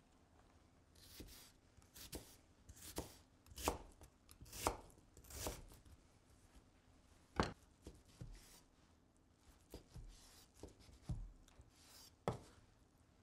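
Kitchen knife cutting through onion onto a wooden cutting board: about a dozen separate, unevenly spaced knife strokes.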